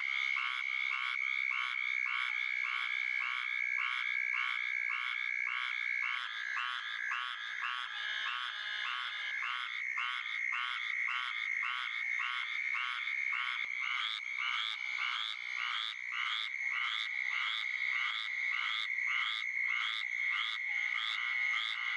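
Squirrel tree frog calling: a duck-like "quack" repeated about twice a second, over a steady high-pitched drone.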